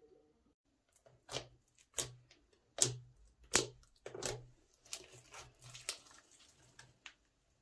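Thick, glossy slime pressed and poked by fingers, then pulled, giving a run of about a dozen short wet squelches and pops, roughly two a second.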